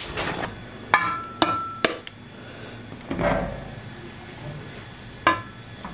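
Crockery and a metal serving spoon clinking: a few sharp clinks a second or two in, one ringing briefly like a plate, then the spoon digging into the cooked pilau in the pot, and one more clink near the end.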